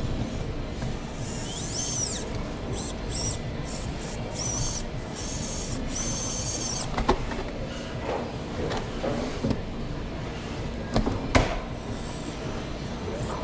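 Small electric motor and drivetrain of a 1/18-scale Traxxas TRX-4M RC rock crawler whining in short bursts that rise and fall in pitch as the throttle is worked. A few sharp knocks in the second half as the truck bumps over the course.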